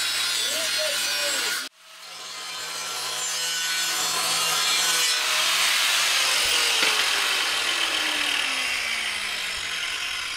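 Angle grinder with a cutting disc working square steel tubing: a steady harsh grinding that cuts off abruptly about two seconds in. The grinding then builds up again and holds, with the disc's whine falling slowly in pitch near the end.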